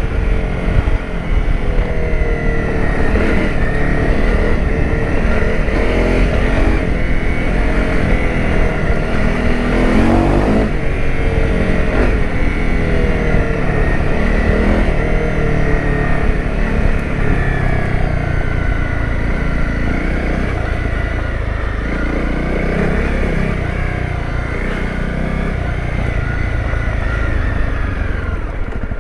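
Honda CRF250 Rally's single-cylinder four-stroke engine running under way off-road, its pitch rising and falling as the throttle is opened and closed, with a sharper rev about ten seconds in.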